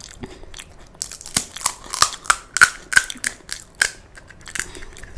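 Crisp, hollow panipuri shell crackling as a fingertip breaks a hole in its top: a quick run of sharp crackles starting about a second in and lasting about three seconds.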